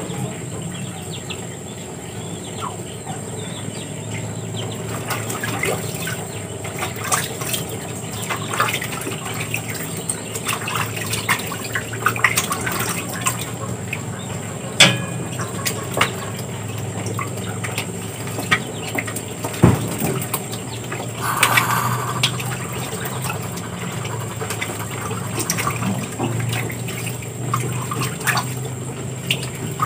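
Muscovy ducks bathing in a basin of water: irregular small splashes and drips as they dip their heads and bodies in and shake.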